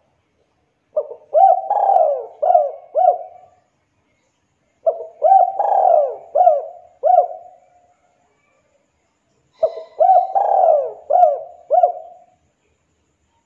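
Spotted dove (tekukur) cooing: three phrases of several short, hooked coo notes each, a few seconds apart.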